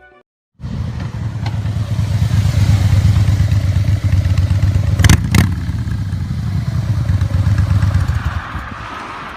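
Big motorcycle engine running with a fast, even low rumble that starts about half a second in. Two sharp clicks come about five seconds in, and the engine eases off near the end.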